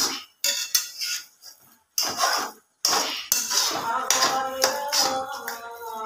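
Metal spatula scraping and clinking against a stainless-steel pot while stirring a thick curry, broken by several sudden cuts, with background music.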